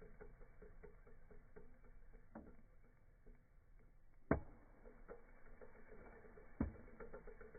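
Slowed-down vacuum cleaner motor, heard as a faint, even ticking pulse, with two sharp knocks, one a little past the middle and one near the end.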